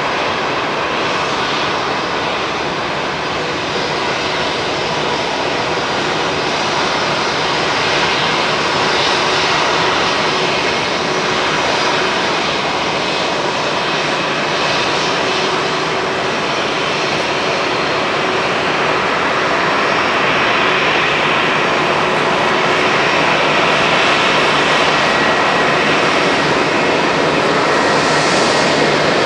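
Boeing 747SP's four jet engines running at taxi power: a steady whine over a rushing noise, growing slightly louder over the second half.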